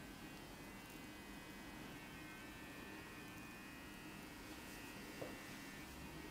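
Quiet, steady electrical hum, with a faint click about five seconds in.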